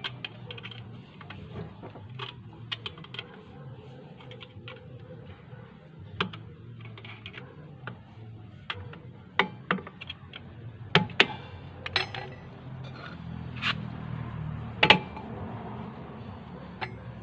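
Irregular metal clinks and knocks of hand tools and brake parts being handled during tuk-tuk brake shoe work. The clicks are scattered and uneven, with the sharpest knocks about eleven and fifteen seconds in, over a low steady hum.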